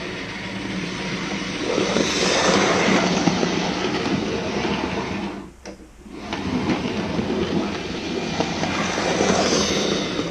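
OO gauge model Class 37 diesel locomotive with a ring-field motor running on the track, its motor and wheels on the rails getting louder as it comes by. The sound drops out briefly about halfway through, then builds again as it passes close by. The loco is running well now that the bent motor contact clip is straightened and a stray track pin has been cleared from the motor.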